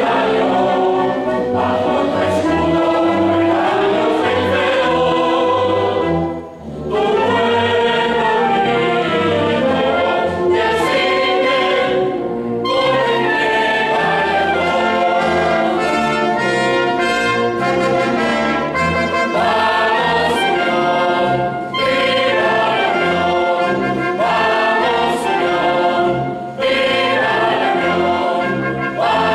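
Mixed choir singing an anthem with a wind band, trumpets prominent among the brass, with a few brief breaks between phrases.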